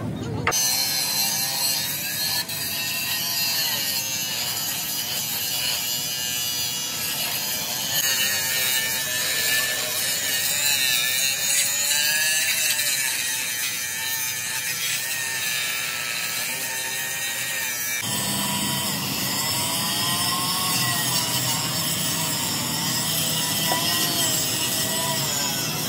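A power tool working on a steel truck frame: a steady, loud rasping whine whose pitch wavers as the tool bears on the metal. It comes in three stretches that break off abruptly, about half a second, eight and eighteen seconds in.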